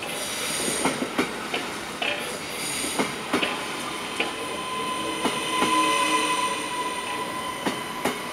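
SBB electric passenger train rolling slowly past over station track: irregular clacks and knocks as the wheels cross rail joints and points, over a steady high whine.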